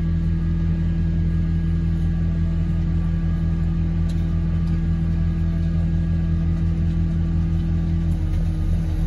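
A large engine running steadily at a constant speed, with a few faint clicks.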